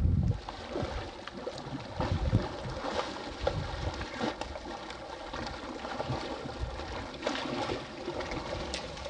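Hooked redfish thrashing at the water's surface: a run of irregular splashes and slaps at no steady rhythm, over a faint steady hum.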